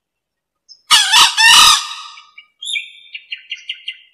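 A male green junglefowl crowing once, about a second in: a short, harsh call in three quick parts. A quick run of short, high chirps follows near the end.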